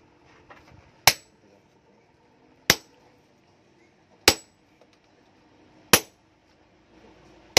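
Sledgehammer blows on a handled tool held against a red-hot steel bearing ring on an anvil: five sharp metallic clangs, evenly spaced about a second and a half apart.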